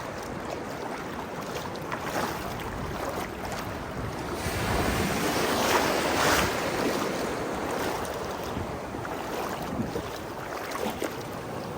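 Surf after a typhoon: a steady rush of waves that swells to a louder breaking wave about halfway through, then settles back.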